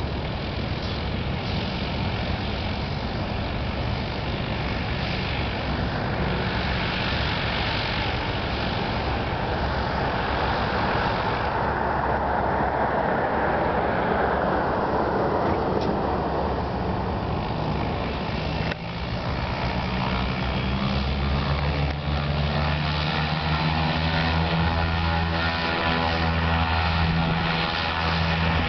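Blimp's propeller engines running, with a rushing noise over them through the first half. About two-thirds of the way in, a steady low engine hum comes up and grows louder as the blimp powers up and climbs away.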